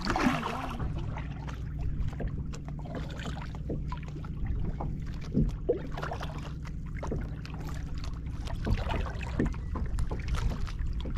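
Water lapping and trickling against a kayak's hull on a lake, with many small scattered drips and splashes over a steady low rumble.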